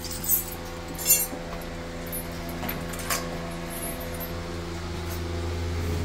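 Steady machine hum with a few light metallic clinks, near the start, about a second in and about three seconds in.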